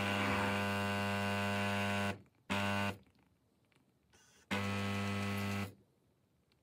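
KitchenAid Artisan espresso machine's 15-bar pump buzzing in on-off pulses at the start of an espresso shot: it runs for about two seconds, cuts out, gives a short burst, then runs again for about a second before stopping, the stop-start pattern of low-pressure pre-infusion.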